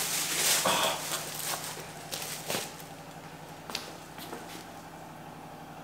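Thick sheet of hammered aluminium foil crinkling and rustling as it is pulled over the head and settled on the body, loudest in the first second, then a few scattered crackles.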